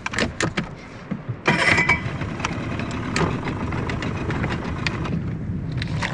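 Small boat's outboard motor starting with a loud burst about a second and a half in, then running steadily. A few knocks come just before it.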